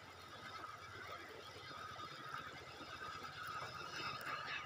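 All Blue Whoppler topwater lure being reeled in across a river, its rotating tail churning the surface with a steady squeaky burble over the rush of the current, with a few sharper splashes near the end.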